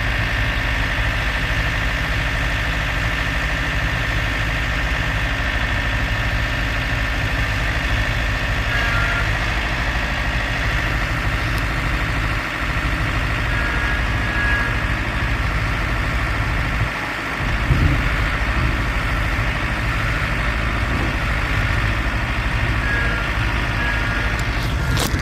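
Farm tractor engine idling steadily, with a brief dip and a short rise in level about two-thirds of the way through.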